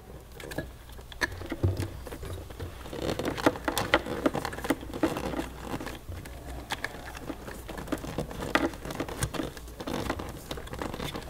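Electrical wiring being handled and pushed into a rubber protective boot: irregular rustling, scraping and small clicks of wires and rubber being worked by hand.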